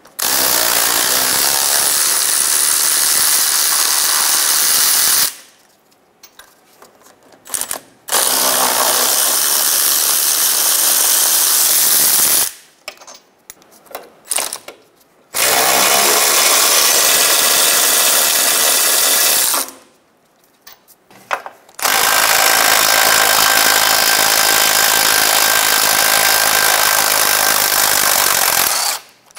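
A power ratchet on a 14 mm socket running out the four wheel bearing bolts: four long, steady runs of about four to seven seconds each, one per bolt, with short pauses between them.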